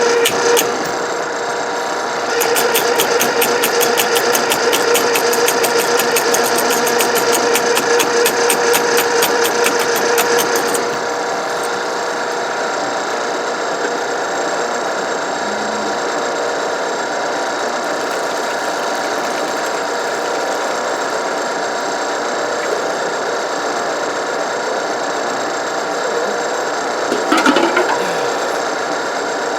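Ridgid K-50 sectional drain machine running, its electric motor turning the cable with a rapid, even knocking for the first several seconds, then running more steadily, with a brief clatter near the end. The sectional cable is against ice in a frozen drain that it cannot cut through.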